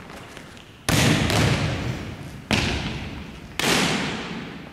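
A volleyball struck hard three times, roughly a second apart, with a lighter knock just after the first. Each smack rings on in a long gymnasium echo.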